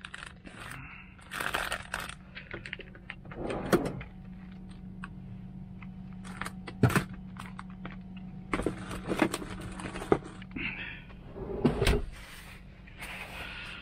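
Scattered clicks, knocks and rustles of salad being mixed and food containers handled, with a few louder clatters around four, seven and twelve seconds in, over a steady low hum.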